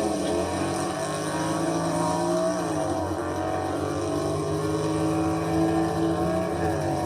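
Car engine held at high, steady revs, its pitch dipping and climbing back briefly about two and a half seconds in and again near the end.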